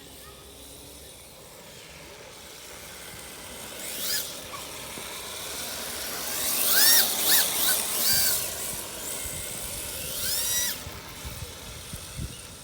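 3D-printed 1:10-scale RC drift car's electric motor whining up and down in pitch in several short bursts as it accelerates and slides, the loudest about halfway, with tyres hissing on asphalt.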